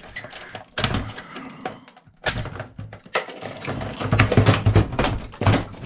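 Irregular clicks and knocks of plastic and metal parts being worked by hand as small circuit boards are pulled out of a cash register.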